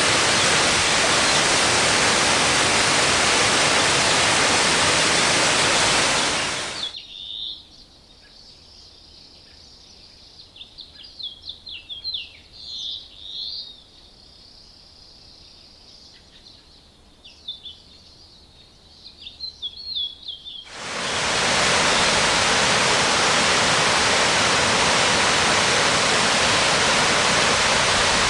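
Waterfall, a loud steady rush of falling water. About seven seconds in it fades away to quiet forest, where several birds chirp and call. About twenty-one seconds in, the rush fades back in.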